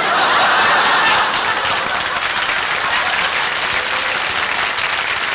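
Studio audience applauding, loudest in the first second and then holding steady.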